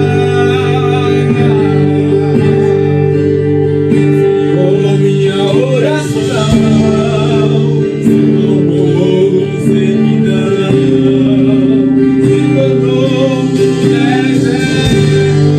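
Worship band music in a pause between sung lines: guitar over steady held chords.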